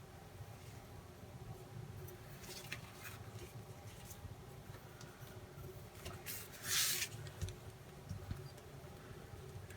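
Faint handling noises of model rocket parts and parachute: scattered light taps and rustles, with one brief louder rustle about seven seconds in.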